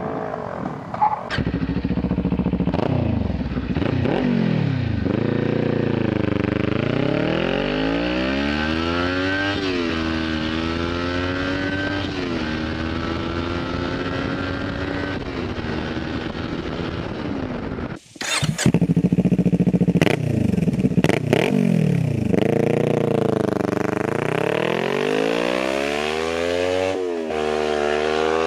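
Kawasaki Ninja 400's parallel-twin engine through an aftermarket MMW BRAP exhaust, its pitch repeatedly rising and falling as the throttle is opened and closed. About 18 seconds in the sound cuts off abruptly and picks up again with a few sharp cracks.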